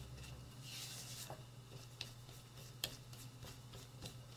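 Silicone spatula cutting and scraping through flour and softened butter in a glass bowl: soft, dry rubbing strokes, with two sharp clicks about two and three seconds in.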